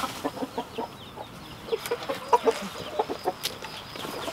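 Chickens clucking in many short, scattered notes, with a few sharp knocks among them.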